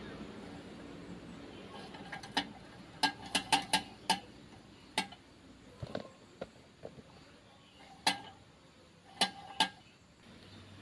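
Sharp metallic clinks, about a dozen at irregular intervals, as a long steel tool knocks against the bolts and aluminium casing of a motorcycle engine crankcase while its bolts are undone.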